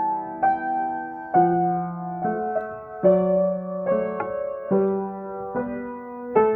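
Acoustic piano playing a slow, meditative improvisation. Notes and chords are struck a little under once a second and left to ring into each other.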